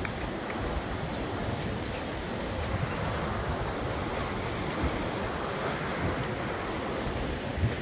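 Steady rushing noise of wind buffeting the microphone, mixed with the river running in the gorge far below.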